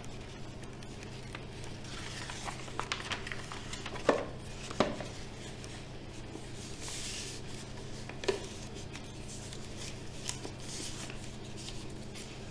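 Sheet of paper rustling and rubbing as it is wrapped and pressed around a plastic bottle, with a few light knocks from the bottle being handled, about four and five seconds in and again near eight seconds. A steady low hum runs underneath.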